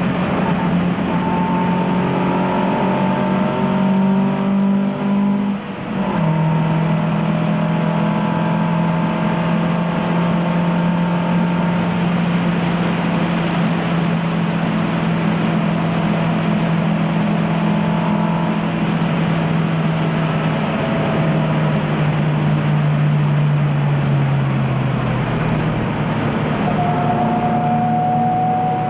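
1971 Alfa Romeo Giulia's twin-cam four-cylinder engine under power, heard from inside the car, running at high revs. Just before six seconds the sound dips briefly and comes back at a lower pitch, a gear change. The revs then hold nearly level, easing down slightly later on.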